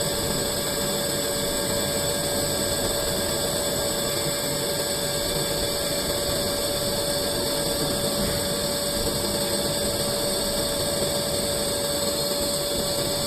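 CNC lathe turning a cylinder into a ball, running steadily with a constant mechanical whine and a fixed high-pitched tone over the cutting noise.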